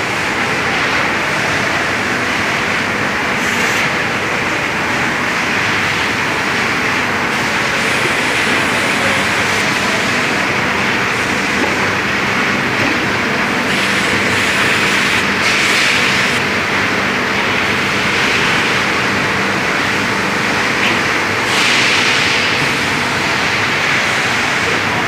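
Steady machinery din on a tyre factory floor lined with running presses: an even hiss with a faint low hum beneath it, swelling briefly a few times in the second half.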